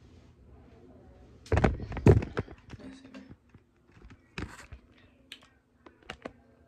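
Handling noise from a phone camera being picked up and set down in a new position: two loud knocks about one and a half to two seconds in, then a few lighter clicks and taps.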